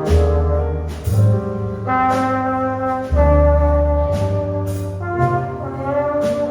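Small jazz combo of trombone, piano, bass and drums playing a slow ballad live, the trombone holding long notes over low bass notes and light cymbal strokes.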